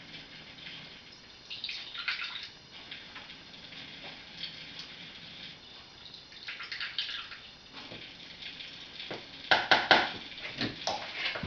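Water running from a kitchen tap, a steady hiss, while water is measured out for the biscuit mixture. A few sharp knocks come near the end and are the loudest part.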